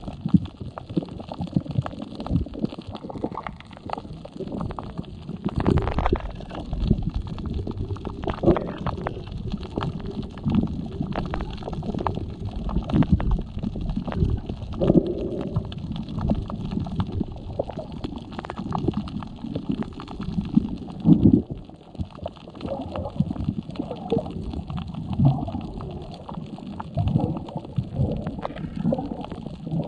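Muffled underwater sound picked up by a camera held below the surface: water gurgling and rumbling with scattered short knocks and thuds.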